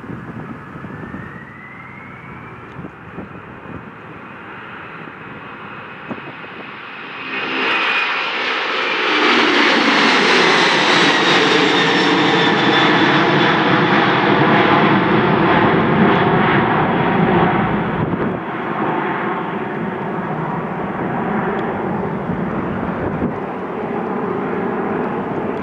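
Airbus CC-150 Polaris (A310) twin turbofan jet engines at takeoff power on the go-around of a touch-and-go. A whine rises in pitch early on. About seven seconds in the jet noise grows suddenly much louder as the airliner climbs out overhead, and its pitch falls as it passes. It eases a little but is still loud near the end.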